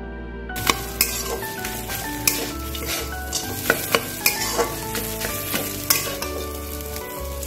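Flat metal spatula scraping and knocking against an aluminium kadai while stirring a thick mashed-vegetable filling. The stirring starts about half a second in, with sharp taps of the spatula on the pan every second or so. Soft instrumental music plays underneath.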